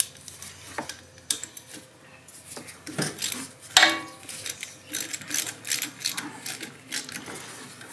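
Wrench working the small terminal nuts off a golf cart starter generator: scattered short metallic clicks and clinks with brief pauses between.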